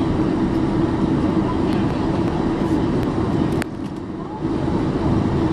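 Cabin noise of a Boeing 747-400 taxiing: the steady rumble and hum of its jet engines at low power, heard from inside the cabin. A sharp click about halfway through, after which the noise briefly drops before coming back.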